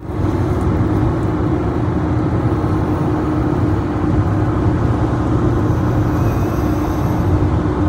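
Steady road noise inside a car's cabin at highway speed: tyre and engine rumble with a constant low hum.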